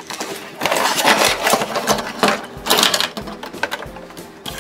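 Packaging rustling and crinkling in several bursts as the pieces of a Play-Doh kit are handled and taken out of the box, followed by a few light clicks of small plastic pieces near the end.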